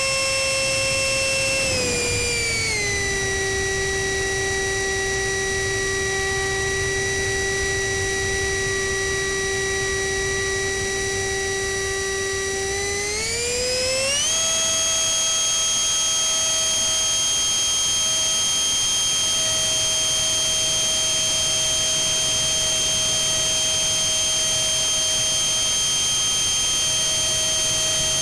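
Onboard sound of a 64 mm electric ducted fan (GWS fan unit with a brushless motor) whining in flight, with air rushing over the airframe. The whine drops in pitch about two seconds in as the fan slows, holds steady, then rises back up around the middle and stays high.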